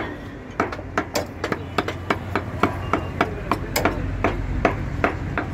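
A butcher's cleaver chopping meat on a wooden block, in quick, slightly uneven strokes of about three to four a second.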